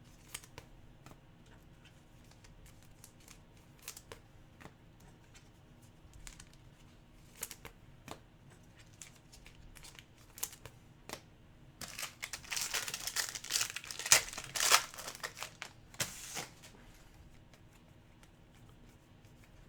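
Cards being handled with faint scattered clicks, then, about twelve seconds in, a trading-card pack wrapper being torn open and crinkled for about four seconds.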